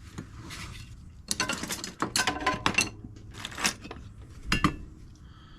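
Small metal parts and hand tools clinking and rattling as they are handled on a workbench, in several short bursts of clinks with a light metallic ring.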